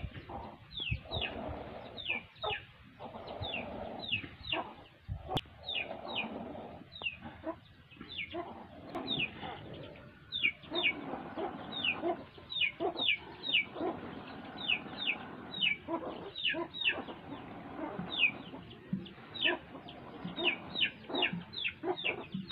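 Milk squirting in short jets into a steel pail as a cow is milked by hand, the two hands alternating, about two squirts a second.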